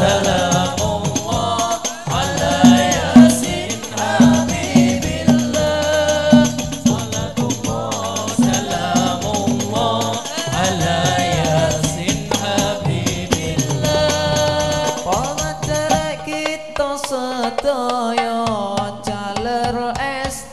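Hadroh ensemble playing: several voices singing a devotional song together over Indonesian rebana frame drums, a darbuka and a bass drum, through a loudspeaker system. The drumming grows busier about three-quarters of the way through.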